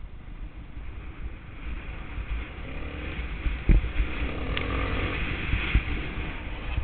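Suzuki DR350's single-cylinder four-stroke engine running on the move over rough dirt, with wind rumble on the microphone and knocks from the ground. The engine gets louder around the middle, with a sharp thump just after halfway.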